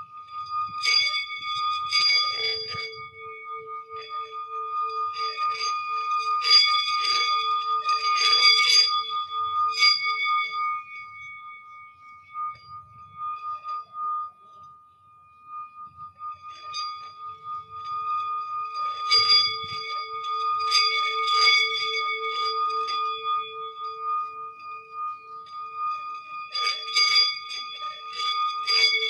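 Bells and chimes played for sound healing: long ringing tones, the lowest with a slow pulsing wobble, under four bursts of rapid jingling strikes, with a quieter lull about halfway through.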